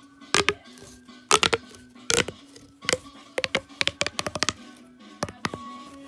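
Plastic pop tube fidget toy being stretched and squeezed, its corrugated ribs popping open and shut in quick clusters of sharp clicks.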